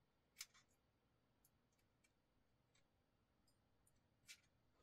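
Near silence with a few faint small clicks, the two plainest about half a second in and near the end, as a precision bit driver turns a small screw into a folding knife's handle.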